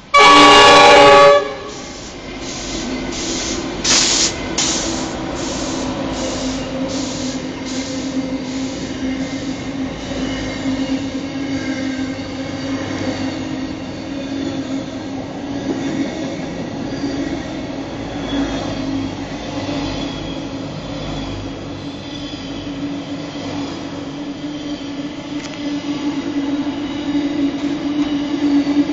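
Pacific National NR class diesel freight locomotive sounding its horn in one loud blast of about a second, as the train runs into the platform. The locomotives and a long train of container wagons then pass, with clattering over the rails in the first few seconds and then a steady rumble carrying a droning tone that grows louder near the end.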